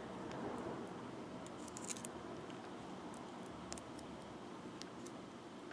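Fingers handling and twisting thin beading wire strung with tiny beads: faint scattered small clicks and ticks over quiet room noise.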